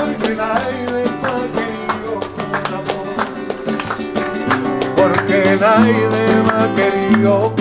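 Flamenco-style acoustic guitar strummed in a quick, steady rhythm, with a voice singing over it in the middle.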